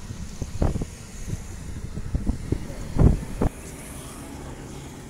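Wind buffeting the microphone in irregular gusts over a low outdoor rumble, with the strongest gusts about a second in and near three seconds in. It then settles to a steadier, quieter low rumble.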